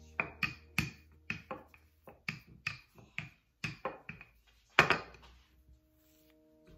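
Wooden handled rolling pin clacking against a granite countertop as it rolls dough back and forth: a quick series of sharp taps, about two or three a second. A louder knock comes about five seconds in as the pin is set down on the stone.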